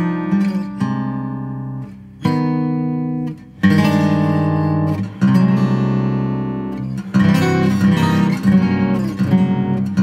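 Solo acoustic guitar playing plucked notes and chords, with brief pauses about two and three and a half seconds in, then louder strummed chords ringing on.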